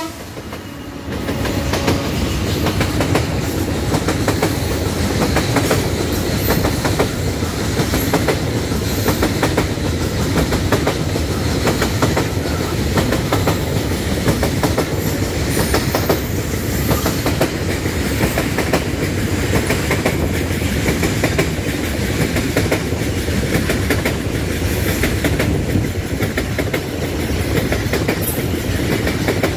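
Coal train's open-top freight wagons rolling past close by, their steel wheels clattering steadily over the rail joints.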